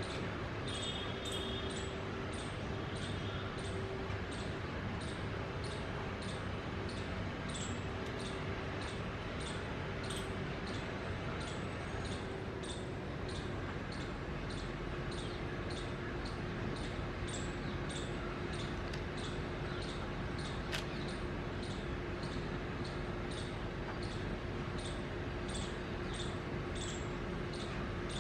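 A short, high chirp or tick repeated steadily, roughly every half second, over a faint steady hum.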